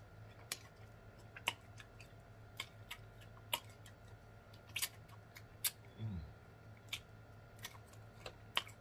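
Close-miked eating sounds of a fried chicken wing being eaten: scattered wet lip smacks and mouth clicks. A short falling 'mm' hum about six seconds in.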